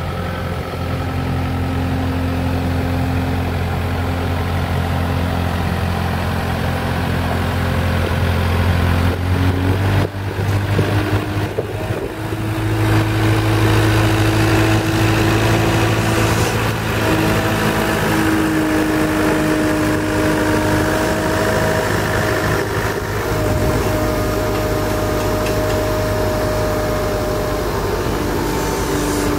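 An engine running steadily, its pitch stepping up about ten to thirteen seconds in and then holding higher.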